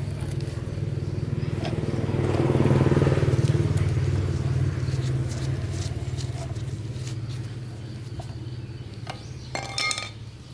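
Old diesel engine running steadily with a rapid firing beat, growing louder about two to four seconds in and then settling. A short metallic clink rings out near the end.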